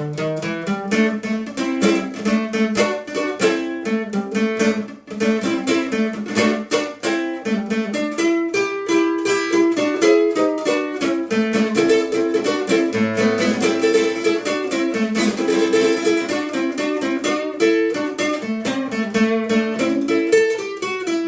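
Instrumental passage of a song: a plucked string instrument picking a quick, unbroken run of notes.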